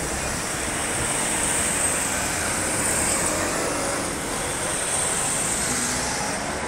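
Cars of a motorcade driving past at close range: a steady rush of engine and tyre noise that swells twice as vehicles go by.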